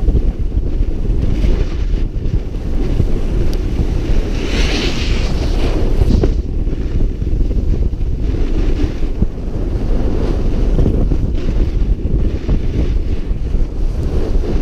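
Wind buffeting an action camera's microphone during a snowboard descent, a steady loud rumble, with the board's edges scraping over packed snow. A louder hissing scrape comes about four and a half seconds in.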